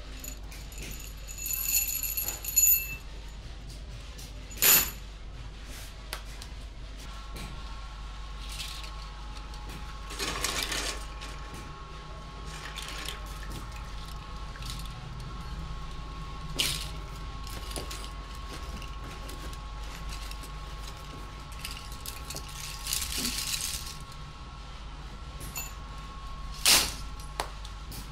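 Small metal padlock parts clinking and knocking, with a few sharp metallic knocks over a steady low machine hum; a steady machine whine comes in about seven seconds in.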